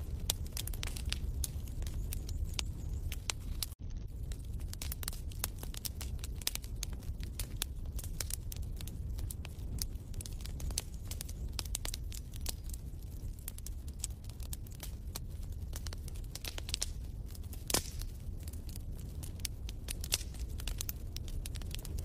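Wood fire crackling in a fireplace: frequent irregular pops and snaps over a steady low rumble. There is a brief dropout just under four seconds in.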